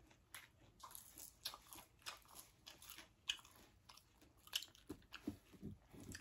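Faint close-up chewing and crunching of food: a string of irregular crisp crunches and mouth clicks.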